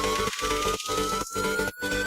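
Electronic background music building up: a synth tone rises steadily in pitch over a beat, with short dropouts about twice a second.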